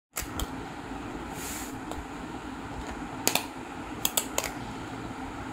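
Sharp clicks and taps of fingers working the plastic lid of a takeaway food container: one about three seconds in and three more in quick succession a second later, over a steady background hum.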